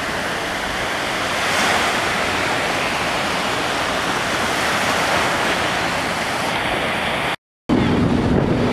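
Small Gulf of Mexico surf breaking and washing up a sandy beach: a steady rushing noise that swells and eases with each wave. Near the end the sound cuts out for a moment and is followed by a louder, lower rumble with a steady hum.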